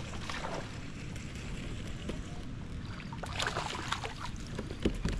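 A small largemouth bass splashing at the surface on the line while it is reeled in toward the kayak, over a steady wind rumble on the microphone. A few short sharp sounds come about three and a half and five seconds in.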